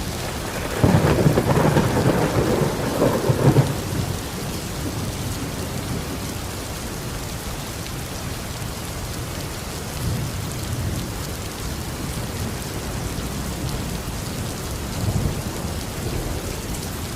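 Thunderstorm: steady heavy rain falling on surfaces, with a loud rumble of thunder about a second in that lasts a few seconds, and fainter rolls of thunder near the middle and near the end.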